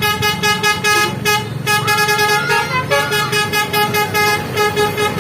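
Basuri telolet horn on a tour bus playing a melody: quick, rhythmic toots, several a second, stepping between pitches.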